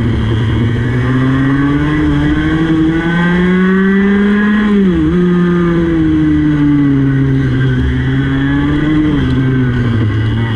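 Racing kart's two-stroke engine at full throttle close to the microphone, its pitch climbing over the first five seconds, dipping for a moment, then easing down and dropping again near the end as the kart slows for a corner.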